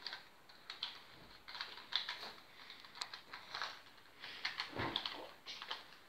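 Rubik's cube being turned by hand: irregular quick plastic clicks and scrapes as its layers rotate, with a busier cluster of turns near the end.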